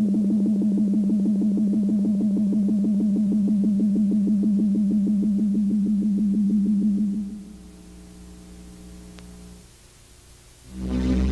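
Synthesizer film score: a sustained low drone with a fast pulsing tremolo, fading down about seven seconds in. A new, louder synthesizer passage swells in near the end.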